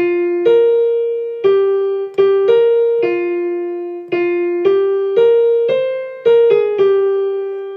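Keyboard with a piano sound playing two lines of a choral alto part together, about a dozen notes struck one after another, each fading after it is struck.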